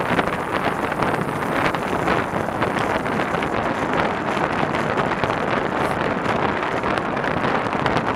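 Steady wind noise rushing over the camera's microphone while riding a bicycle at speed.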